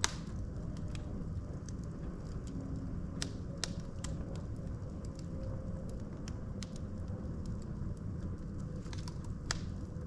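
Logs burning in a fireplace: a steady low rumble of flame with scattered sharp crackles and pops, the loudest right at the start.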